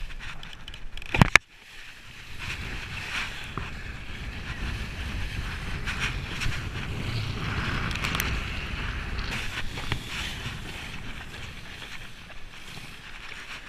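Wind rushing over the camera and water hissing under a kiteboard as it rides across the water. A sharp double knock comes a little over a second in and is the loudest moment.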